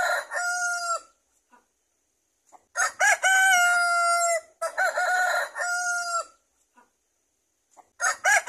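Rooster crowing, the same crow heard repeatedly: one ends about a second in, two more follow back to back in the middle, and another begins near the end. Each crow is a few short rising notes and then one long held note that stops abruptly.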